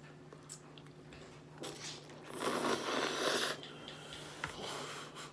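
Mouth sounds of someone eating spaghetti close to the microphone: a short bite sound, then a louder noisy rush lasting about a second midway.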